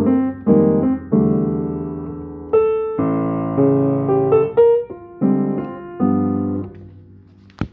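Yamaha P22 studio upright piano played by hand: a series of full chords, each struck and left to ring and fade, with the playing dying away about seven seconds in. A single sharp click comes just before the end.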